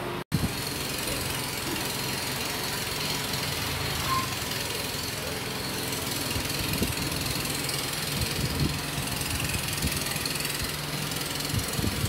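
A motor running steadily, with a low hum and a faint high whine.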